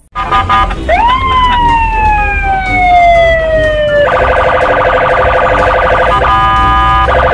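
Police car siren: one wail that rises sharply about a second in and then falls slowly, followed by a steady, loud multi-tone blare with a few brief breaks.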